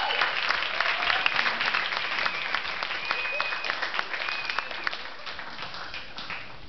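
Audience applauding, dense clapping with a few high calls or whistles over it, slowly dying down toward the end.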